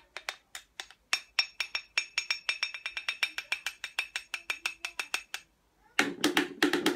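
Rapid tapping on a hard object that rings at a fixed pitch, played as a demonstration sound. A few scattered taps come first, then a steady run of about six taps a second, then a quicker, lower clatter near the end.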